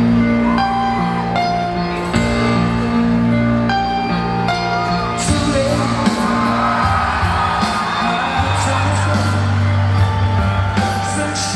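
Pop-rock music with singing over held keyboard chords.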